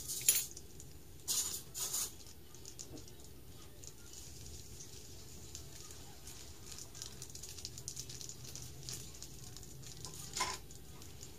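Small clear plastic bag crinkling in the hands as it is opened: a few sharp crinkles in the first two seconds, faint rustling after, and one more crinkle near the end.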